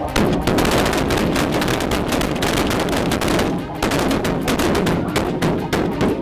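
Several shotguns fired by a party of goose hunters in a rapid, overlapping volley: many shots packed closely together, with a short lull after about three and a half seconds before the firing picks up again.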